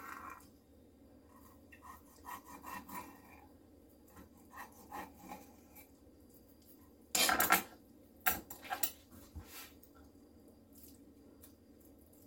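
A sharp knife scoring the skin of whole fish on a hard cutting board: quiet rasping strokes, with one louder scrape about seven seconds in and a few sharp clicks just after it.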